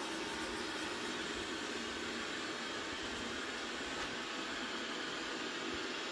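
Robot vacuum cleaner running with a steady whirring hiss.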